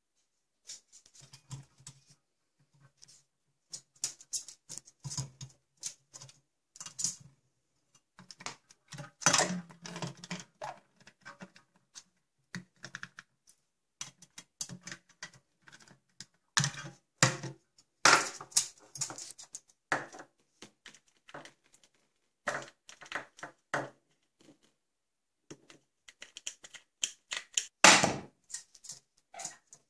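Pet parrots playing with plastic toys: irregular sharp clicks, taps and clatter of beaks, claws and toys on hard surfaces, including a steel pot and a stainless steel sink. The loudest single knock comes near the end.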